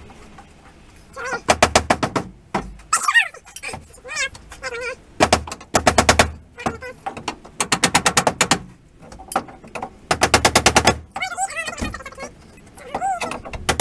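Handheld power tool run in several short bursts of rapid knocking, each about a second long, worked against wooden wall panelling.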